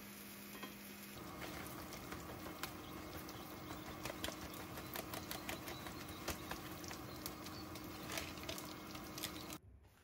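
A savory green-onion pancake frying in oil in a non-stick pan: a steady sizzle full of small crackles and pops over a faint low hum, cutting off abruptly near the end.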